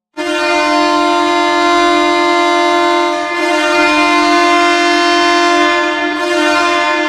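NHL arena goal horn sounding: one low, steady horn note, heavy with overtones, starting abruptly and holding on, with brief dips in level about three and six seconds in.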